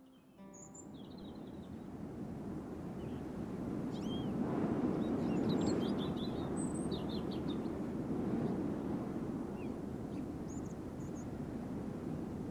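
Outdoor ambience fading in over the first few seconds: a steady low background noise with small birds chirping now and then in short, high calls.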